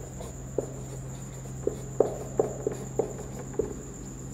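Marker pen on a whiteboard: short, irregular squeaks and taps as handwriting is put down stroke by stroke, the sharpest ones about two seconds in.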